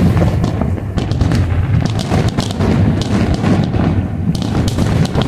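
Fireworks display: a dense run of bangs and crackles over a constant low rumble.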